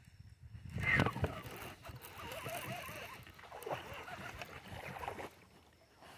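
Baitcasting reel being cranked to wind in line for about four seconds, with a louder clatter of handling about a second in.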